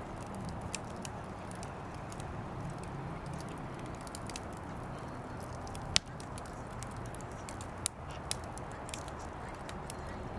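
Firewood burning in a portable fire pit, crackling steadily with scattered sharp pops, the loudest about six seconds in.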